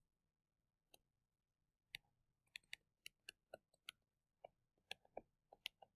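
Faint, irregular clicks of a stylus tip tapping and lifting on a touchscreen as handwriting is written, about fifteen over the last four seconds.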